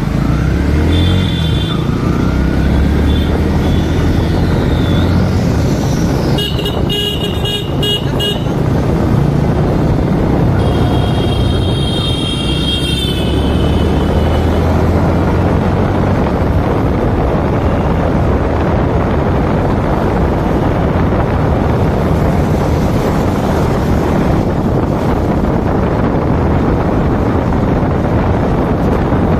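Motorcycle engine running on the move through traffic, with wind and road noise that grow heavier in the second half. Vehicle horns beep about a second in, again around seven seconds, and once more around eleven to thirteen seconds.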